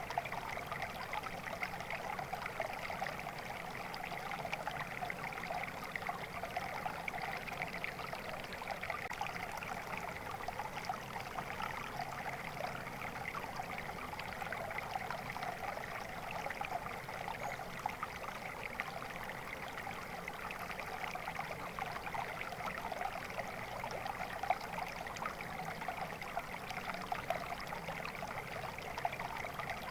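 Flowing stream water, a steady babbling trickle.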